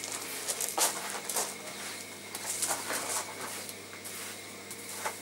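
A long-handled oven rake scraping and dragging across the brick floor of a bread oven, in several rough strokes.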